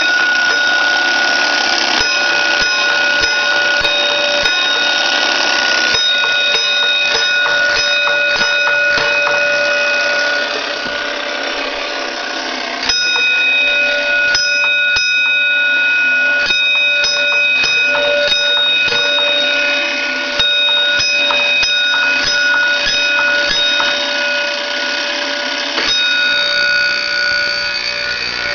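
Electric 6-inch fire alarm bell ringing loudly in long runs of rapid strokes with short breaks, tapping out the Gamewell box's coded number 1-2-5-6 round after round. It goes weaker for a couple of seconds about ten seconds in.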